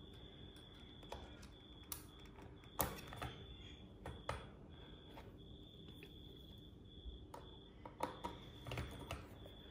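Faint scattered clicks and taps of a screwdriver and fingers working wires into the terminal screws of a garage door opener's circuit board, the sharpest near three seconds in. A faint high tone comes and goes underneath.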